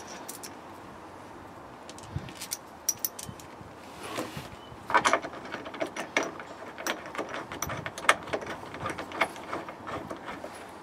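Irregular clicks and knocks of an Austin Maestro's plastic interior trim and fittings being handled and pressed into place, the loudest cluster about halfway through.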